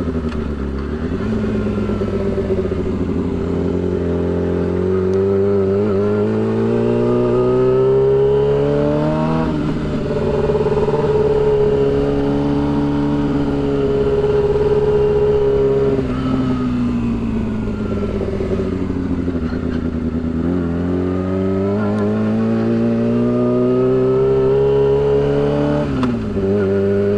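Yamaha R6 600 cc inline-four running through a shorty exhaust while ridden at low speed. The revs climb slowly for several seconds, drop sharply about nine seconds in, hold, sag, then climb again before dropping once more near the end.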